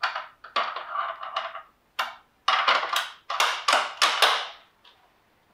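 Handling noise from a Sako S20 rifle being worked on in a cleaning vise: a string of short clicks and scrapes of metal and polymer parts, about seven in a row with brief pauses between.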